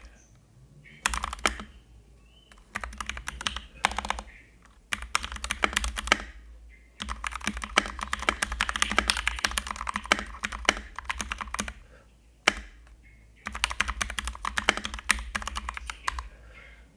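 Typing on a Keychron K2 mechanical keyboard: fast runs of key clicks in several bursts with short pauses between, the longest run in the middle.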